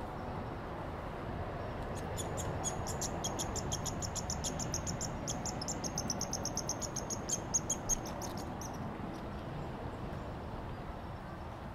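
A rapid, high-pitched chattering trill of about ten sharp notes a second, lasting several seconds, with a few louder notes near its end, over a steady outdoor background hiss.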